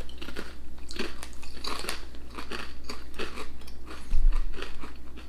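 Potato crisps being crunched and chewed close to the microphone: a quick, irregular run of crisp cracks. A low thump comes about four seconds in.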